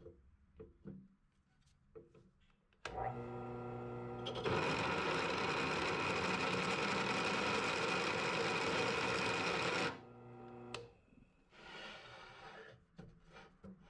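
Drill press motor starting about three seconds in, then a chamfering bit cutting a bevel into a freshly drilled bolt hole in a cast iron Z32 brake rotor, a loud steady grinding for about five seconds. The motor stops about ten seconds in.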